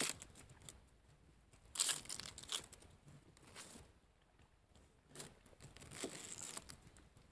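Dry onion skin being cut and peeled off with a knife: a few short bursts of papery crackling and tearing, about two seconds in and again near the end.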